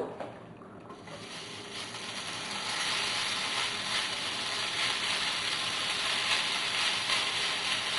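Diced smoked bacon sizzling as it goes into a hot frying pan. The sizzle starts about a second in, builds as more pieces are added, then holds steady with a fine crackle.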